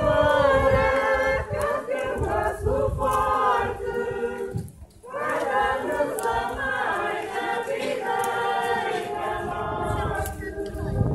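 A group of people walking in procession, singing together in unison in long sustained phrases, with a brief break between phrases about four and a half seconds in.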